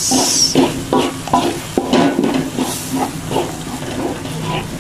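Wooden spatula stirring and scraping a blended spice paste in a metal wok, in short repeated strokes about three a second, while the paste sizzles in its oil.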